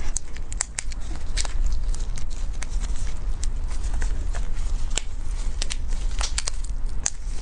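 Gloved hands working a raw marinated spiny lobster, pulling the tail meat out of the shell: scattered sharp, wet crackles and clicks of shell and plastic gloves. A steady low hum runs underneath.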